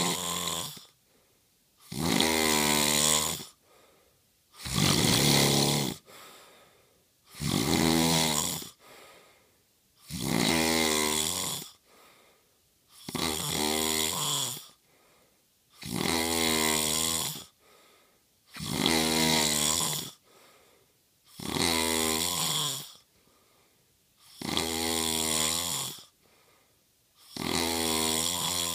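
A man snoring in his sleep: a long, pitched snore about every two and a half to three seconds, with near-quiet pauses between, in a steady rhythm.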